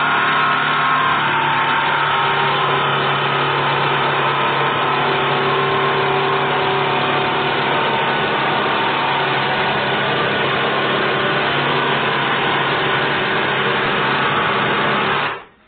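Battery-powered cordless jigsaw running steadily as its blade cuts lengthwise along a wooden board. It stops suddenly near the end.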